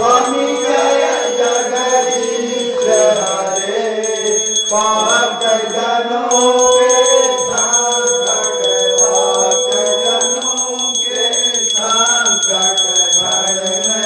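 Voices singing a Hindu devotional aarti hymn together, in long sung phrases, over a small bell rung fast and without a break.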